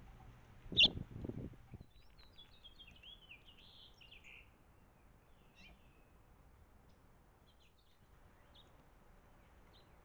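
Songbirds twittering and chirping: a quick run of warbled chirps two to four seconds in, then a few faint single chirps. Near the start come low scrapes and knocks, with one sharp tap about a second in, from animals feeding at seed on a wooden rail.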